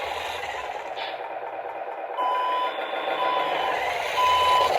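RC truck sound module playing a reversing-beeper effect through the model's small speaker: three steady beeps start about two seconds in, over a hissing noise that fades in the first two seconds.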